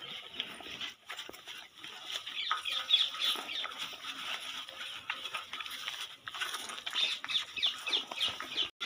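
A calf munching fodder from a tub, with many short bird calls throughout, such as yard fowl.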